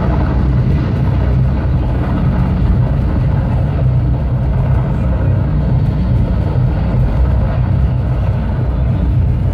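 Rocket-launch sound effect played over a projection show's sound system: a loud, steady, deep rumble.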